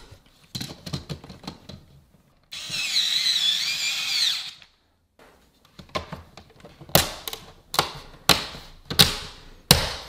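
A handheld power drill runs for about two seconds with a wavering whine. From about six seconds in come a run of sharp plastic clicks and knocks as a three-gang switch wall plate is pressed into place.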